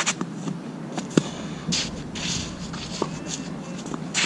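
Tennis ball struck by rackets and bouncing during a rally on a clay court: a few sharp pops, the loudest about a second in, with shoes scuffing and sliding on the gritty clay between shots.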